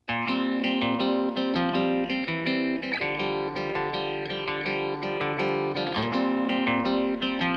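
Background music: plucked guitar playing a steady, rhythmic pattern of notes.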